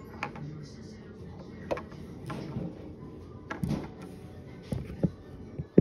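Close handling noise as fingers grip and move a small plastic toy wolf figurine right by the microphone: a low rubbing rumble with scattered soft knocks and clicks at irregular moments.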